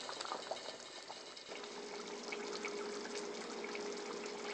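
Faint hiss and small popping bubbles of pots heating on a stove: water coming up to the boil for the pasta, then meat sauce simmering. About one and a half seconds in the background changes and a steady hum comes in.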